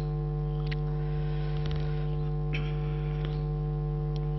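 Steady electrical mains hum in the sound system, with a few faint clicks about a second apart.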